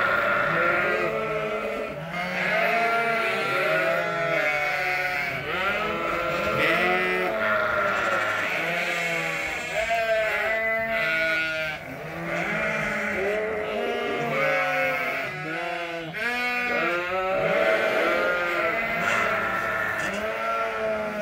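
A pen of Suffolk lambs, weaned the day before, bleating without pause, many voices overlapping into a constant chorus.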